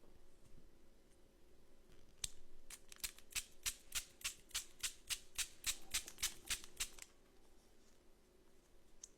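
A quick, even run of crisp clicks, about four a second, starting about two seconds in and stopping about seven seconds in, from a toy and its packaging being handled.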